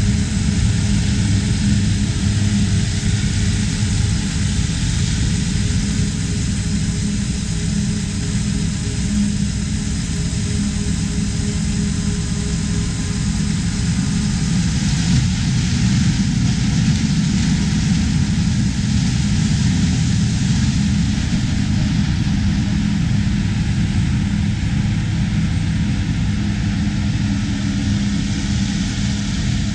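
Steady, unbroken mechanical drone with a strong low hum, running evenly throughout.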